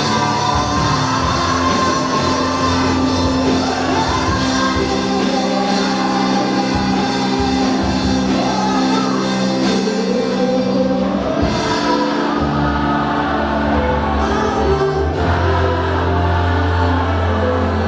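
Gospel band playing live with voices singing over sustained bass and keyboard chords, loud and steady.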